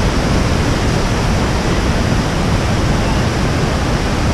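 Loud, steady rush of whitewater pouring over boulders in a rocky river cascade.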